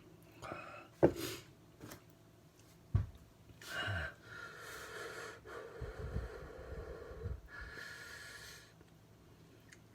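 A man breathing hard and sniffing through the burn of a superhot chili pepper, with long forceful breaths in the middle and a second one near the end. There are two sharp knocks in the first few seconds.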